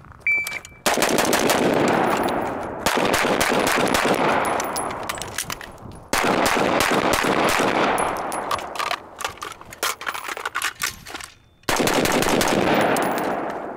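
A shot timer beeps once, then rapid strings of gunfire from an AR-15-type carbine and a semi-automatic pistol, each string trailing a long echo. The strings are broken by short pauses for the reloads and rifle-to-pistol transitions, with the longest pause before the final string.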